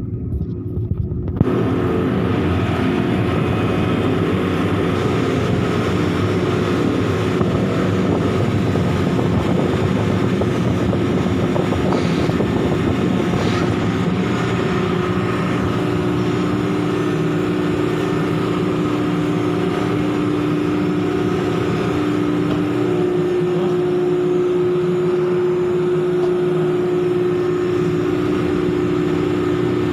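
Heavy machinery working a ship's coal unloading, running steadily as a loud even drone with a humming tone. It cuts in abruptly about a second and a half in, and a second hum joins about halfway through.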